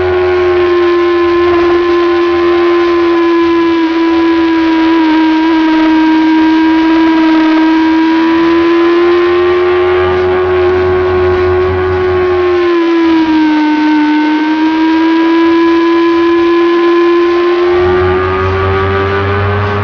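Motorcycle engine running hard at high revs on track, its note held fairly steady, dipping briefly about two-thirds of the way through as the rider eases off, then climbing again.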